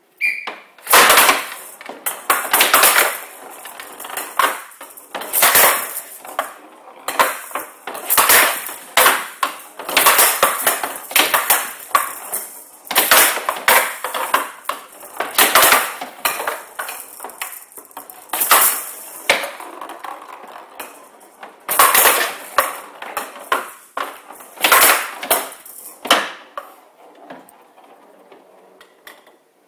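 A showdown rally: the hard plastic ball, rattling with the metal beads inside it, is hit back and forth with wooden bats and bangs off the wooden side walls of the table, a fast run of sharp clattering knocks that dies down near the end.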